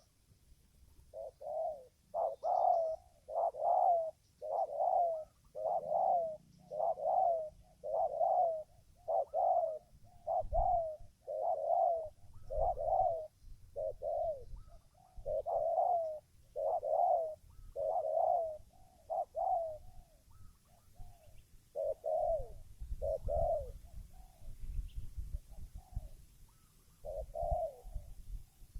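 Spotted dove (tekukur) cooing: a long run of coos, about one a second, thinning out and coming more irregularly in the last third. A low rumble sits underneath at times.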